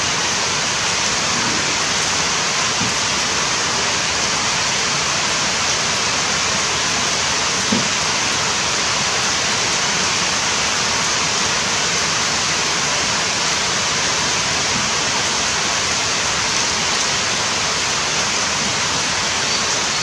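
Steady, even rushing noise of running water, with no breaks or changes in level.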